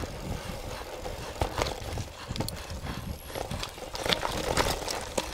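Mountain bike rolling along a dirt trail: tyre noise with irregular clattering knocks as the bike jolts over bumps.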